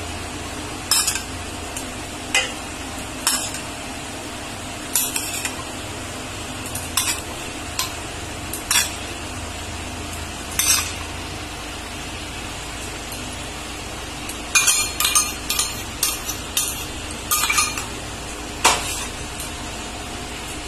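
A spoon clinking and scraping against a steel bowl as liquid is scooped out and sprinkled, in scattered single clinks with a quicker run of clinks about fifteen seconds in, over a steady low hum.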